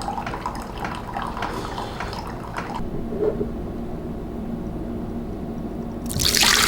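Coffee brewing: liquid trickling and sputtering for the first few seconds, then a quieter stretch with a low steady hum. About six seconds in, a loud hissing rush starts.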